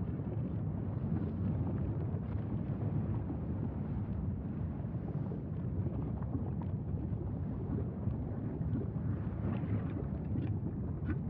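Low, steady rumbling roar of a lava fountain at Mauna Loa's erupting fissure vent, with faint scattered pops and crackles, a few more near the end.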